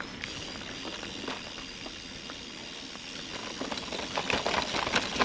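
Bicycle rolling over rough ground: a steady tyre hiss, then a busy, louder run of crunches and rattles from about three and a half seconds in.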